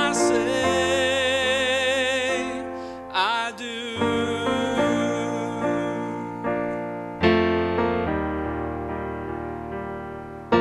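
Background music: the instrumental break of a slow love ballad, led by piano or electric keyboard. Sustained chords change every few seconds.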